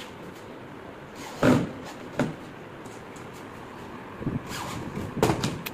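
A few short, sharp knocks and clicks as a handheld drill and screws are worked against the panels of a laminated wooden box: one louder knock about a second and a half in, then a quick run of clicks near the end.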